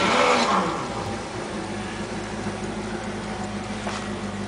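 Tollycraft's port inboard engine just after a cold start: it catches with a burst of revs that drop away in the first second, then settles into a steady idle with a light mechanical ticking.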